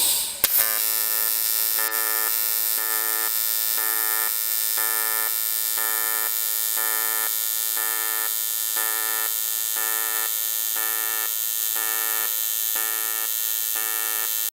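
AC TIG welding arc on aluminium, run without filler wire. It starts with a brief crackle, then holds a loud, steady buzz that pulses evenly about one and a half times a second, and cuts off suddenly near the end.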